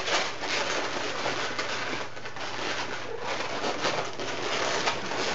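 Latex modelling balloons rubbing against each other as they are twisted together, a continuous scratchy rustle, with a low steady hum underneath.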